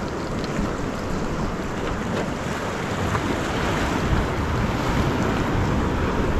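Ocean surf washing against the rocks, a steady wash that builds a little about halfway through, with wind buffeting the microphone.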